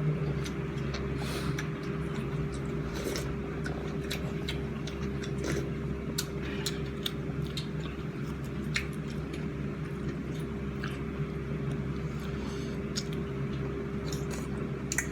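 Ramen being eaten: chewing and eating noises with scattered light clicks, over a steady low hum.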